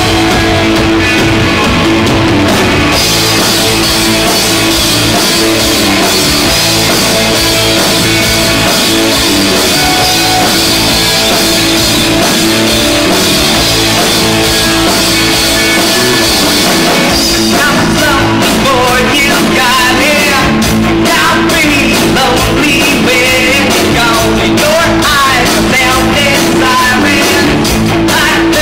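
A rock band playing live: electric guitars, bass guitar and drum kit. A male lead vocal comes in a little past halfway through.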